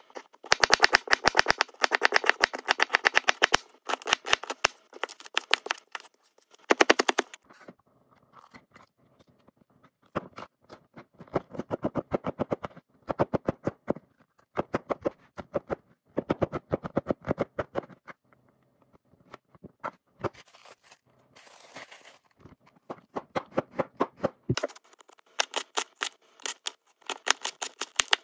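Kitchen knife chopping vegetables on a cutting board in quick runs of rapid strikes with short pauses between them: onion at first, green pepper around the middle, and carrot near the end.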